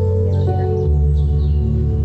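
Slow ambient, new-age style background music of long held notes, the low chord changing about a second in.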